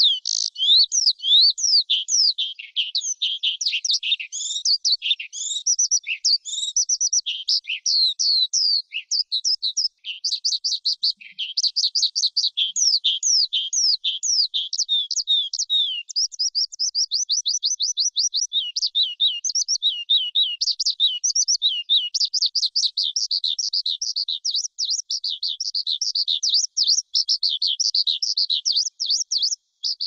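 Skylark singing a long, unbroken song of rapid, high twittering and trilling notes, with a brief break near ten seconds and another just before the end.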